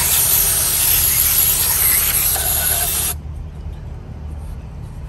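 Aerosol spray can with a straw nozzle hissing in one continuous spray, cutting off sharply about three seconds in.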